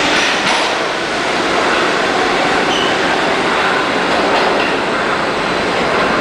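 R44 subway train pulling out of an underground station: loud, steady noise of its motors and steel wheels on the rails, carried through the tunnel.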